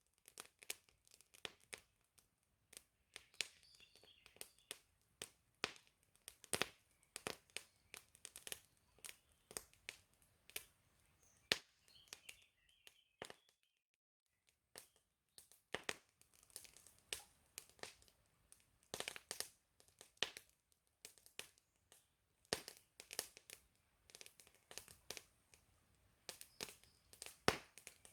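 Wood campfire crackling and popping, with irregular sharp snaps coming several a second. It falls almost silent for about a second midway, and there are faint bird chirps around 3 s and again around 12 s.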